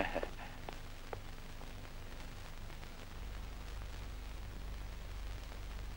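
Faint hiss and low hum of an old film soundtrack, with a few soft clicks in the first second; the hum gets a little louder about three seconds in.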